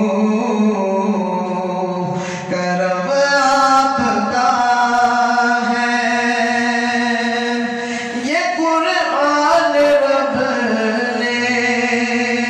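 A man singing a naat into a handheld microphone. His voice holds long notes and bends between pitches, with a rising slide about eight seconds in.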